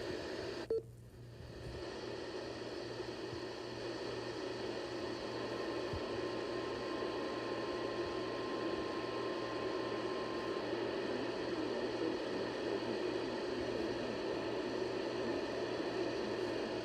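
AM radio static: a steady hiss with a low hum underneath. There is a brief click about a second in, followed by a short drop in level, and a faint steady tone in the middle.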